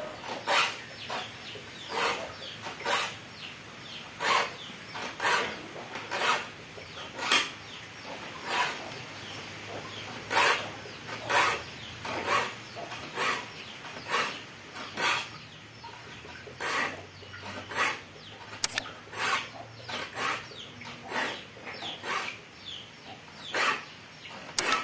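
A hand file rasping across the teeth of a wood-cutting hand saw in steady, regular strokes, a little more than one a second, each a short gritty scrape. The saw's dull, rusty teeth are being sharpened.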